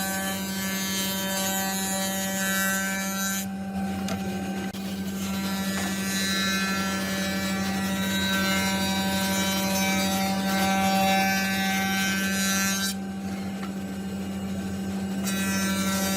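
An electric power tool running steadily while working wood, its motor hum constant, with the higher noise of the tool against the wood dropping out twice for a second or two while the motor keeps running.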